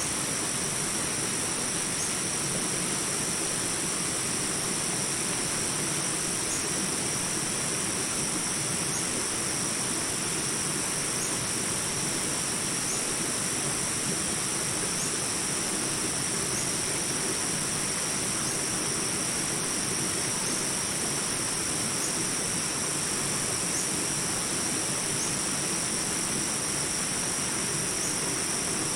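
Small jungle rapids rushing steadily, a constant even wash of water. Over it runs a continuous high insect drone, with short faint chirps every second or two.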